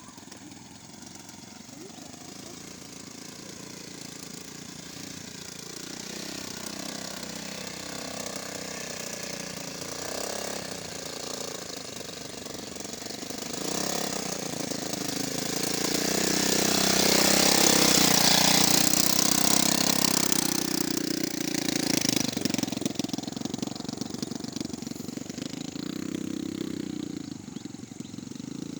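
Petrol brush cutter (grass-cutting machine) running with a steady buzz. It grows louder over the first eighteen seconds or so, then eases off.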